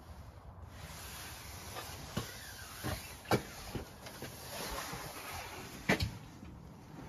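A few sharp knocks and clicks over a steady hiss, the loudest about three seconds and six seconds in.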